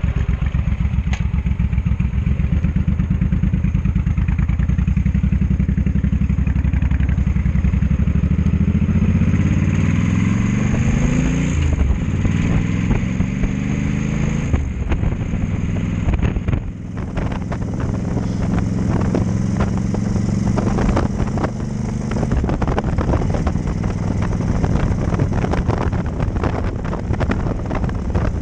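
Cruiser motorcycle engine idling, then pulling away. The engine note rises, drops at a gear change about twelve seconds in, rises again and drops at another shift. From about seventeen seconds it runs steadily at road speed, with wind buffeting the microphone.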